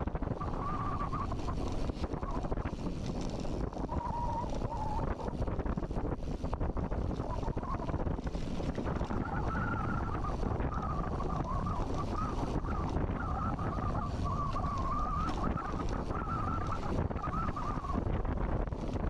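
Wind buffeting the microphone of a camera on a mountain-bike ride, a steady rumble, with a faint wavering whine through much of the second half.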